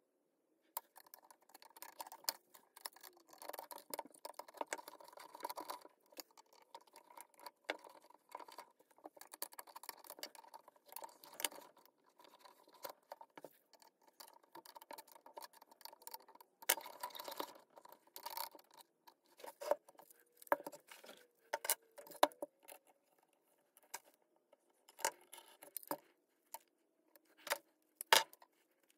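Light, irregular clicks, taps and small scrapes of small hard parts being handled and worked on, with no steady rhythm.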